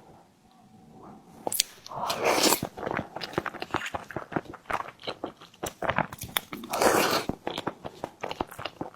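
Close-miked eating of a tiger skin dessert: biting and chewing with many quick clicking mouth sounds. Two longer, louder bites come at about two seconds in and about seven seconds in.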